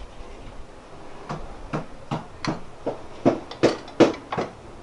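A utensil knocking and scraping against a frying pan as food is served out of it onto a plate: a run of sharp knocks, about two a second, loudest near the end.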